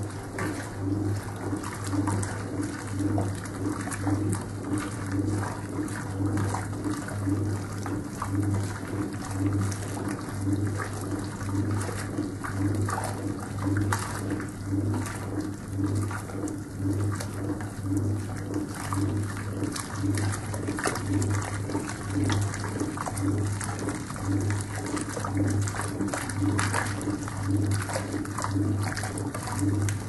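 Servis Superheat Model M Mk 16 washing machine agitating a hot wash: the motor and agitator hum swells and fades in an even rhythm, roughly once a second, with the laundry water sloshing.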